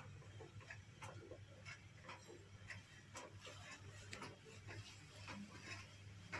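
Near silence: room tone with a faint low hum and scattered faint clicks.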